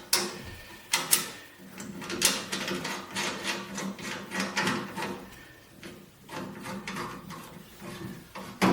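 Clicks, knocks and light rattles of a wooden handle being fitted onto the end of a large steel crosscut saw blade.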